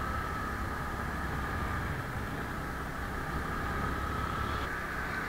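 Motor scooter being ridden at steady speed: an even hum of engine and road noise.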